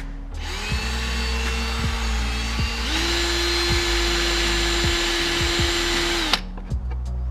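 Power drill running steadily, its whine shifting pitch and getting louder about three seconds in as it bores a hole through a plastic trim piece, then stopping suddenly near the end.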